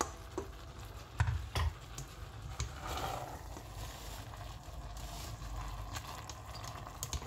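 A plastic slotted spatula stirring rice and dal in a stainless steel pot, with a few sharp knocks of the spatula against the pot in the first few seconds and soft scraping and shuffling of the grains after.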